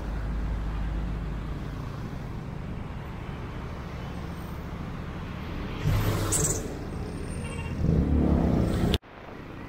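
Street traffic: cars and motor scooters running past on a busy road, a steady rumble with louder swells as vehicles pass close about six seconds in and again near the end. The sound drops out suddenly for an instant just before the end.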